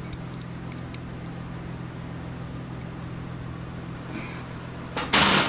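Steady low hum of a fan or machine, with a few faint light clicks in the first second, then a brief loud hiss near the end.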